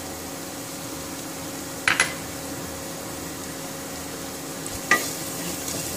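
Minced garlic sizzling gently in ghee in a pot, under a steady low hum. There are sharp clicks twice, about two seconds in and again near five seconds.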